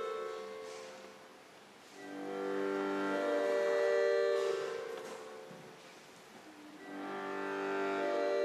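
Slow instrumental music: long held chords that swell and fade away, in three phrases.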